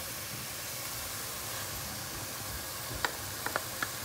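Biryani masala sizzling in hot oil in a steel pot as yogurt is tipped in: a steady hiss, with a few light clicks near the end.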